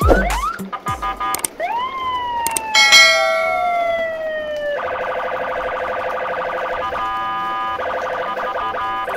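Edited-in electronic sound effects: a few quick whistle-like pitch slides and a long falling tone, then from about five seconds in a steady, fast-pulsing alarm-like warble of several tones.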